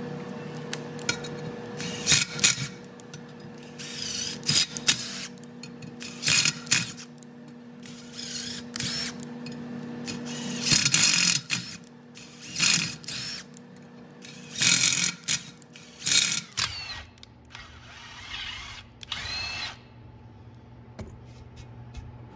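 Power tool run in many short, irregular bursts of a second or less, over a steady machine hum that changes near the end.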